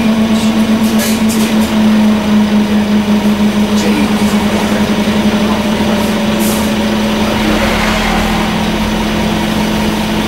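Scania N230UD bus's five-cylinder diesel engine idling, heard from inside the passenger saloon as a steady hum with a rhythmic throb that evens out about six seconds in.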